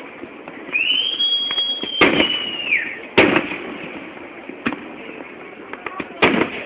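Fireworks: a whistling firework gives a high, steady shriek for about two seconds that drops in pitch as it dies away. Aerial shells burst with loud bangs about two, three and six seconds in, with a few smaller pops between them.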